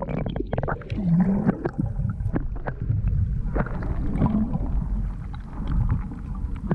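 Water heard through a submerged action camera's microphone: a muffled low rumble with scattered clicks and bubbling, and a brief gurgle about a second in, as a large shark swims close past.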